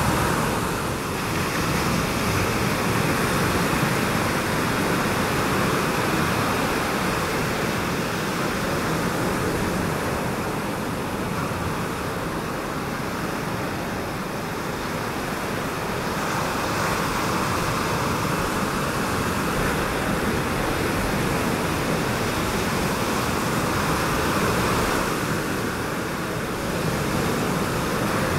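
Surf of waves breaking, a steady wash of noise that swells and eases every several seconds.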